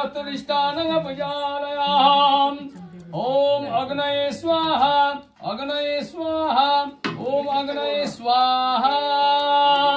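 Hindu havan mantras chanted in a melodic sing-song voice, phrases held on long notes with brief pauses between them.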